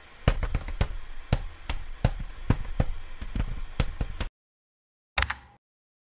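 A quick, irregular run of sharp knocks or taps, about four a second, that cuts off suddenly after about four seconds, followed by one more short knock about a second later.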